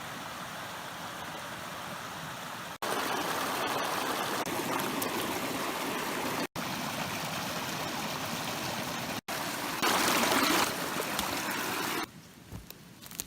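Creek water running steadily, heard as several short takes joined by abrupt cuts, with a louder stretch about ten seconds in.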